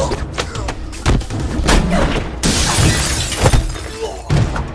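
Film fight sound effects: a quick run of punch and body-hit impacts, then glass shattering for about a second a little past halfway, with more hits near the end.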